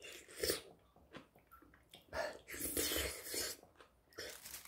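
Close-up eating sounds of a mouthful of noodles being slurped and chewed. There is a short noisy slurp about half a second in and a longer one from about two to three and a half seconds.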